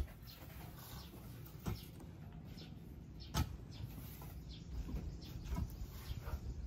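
Mason's trowel working mortar on a concrete hollow-block wall: a few sharp taps about a second and a half apart, with faint scraping between them, over a low background rumble.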